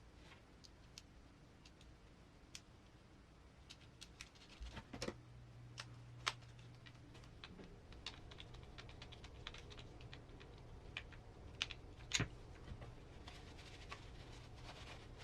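Light, irregular clicks and taps of small plastic and metal RC crawler transmission parts and screws being handled and fitted together by hand.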